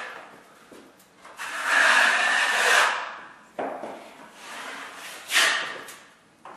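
Drywall knife drawn through joint compound on an inside corner: a scraping stroke lasting over a second, a knock, then a second, shorter stroke near the end.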